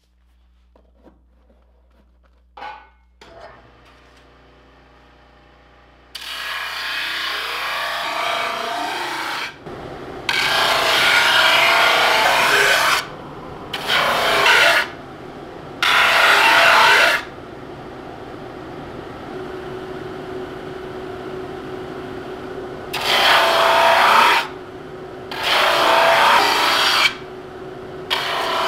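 Benchtop drum sander with 36-grit paper: a click, then the machine spins up and runs steadily. About seven times, a laminated wooden kayak paddle blade is pushed across the spinning drum, each pass a loud coarse rasp of one to three seconds, as the blade's power face is sanded level.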